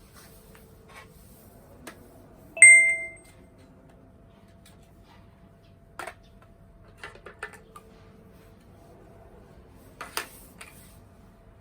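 A metal object is struck once and rings briefly with a clear, bell-like tone, about two and a half seconds in. Several light clicks and knocks follow, the sharpest near the end.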